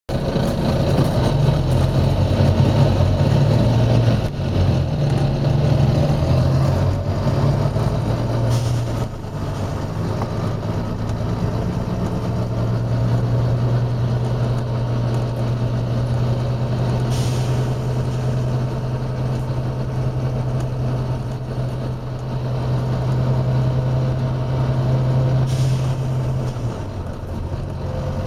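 Volvo B9TL double-decker bus's diesel engine running with a steady drone, its note shifting a few times. Three short air hisses from the bus's air system come at roughly eight-second intervals.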